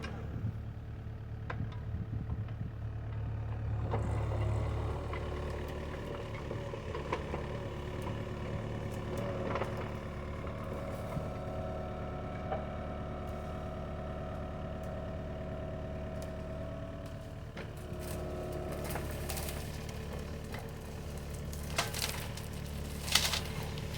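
Kubota mini excavator's diesel engine running steadily under work, with a couple of sharp cracks near the end.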